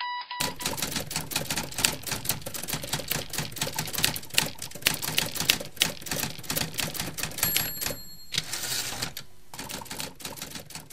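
Manual typewriter typing fast, a rapid irregular clatter of keystrokes. About seven and a half seconds in, a bell-like ring sounds briefly, then the typing carries on.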